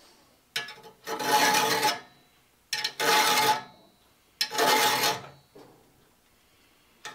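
A saw file pushed across the teeth of a crosscut pruning saw's steel blade, sharpening them: three rasping strokes of about a second each, with a ringing tone under the rasp.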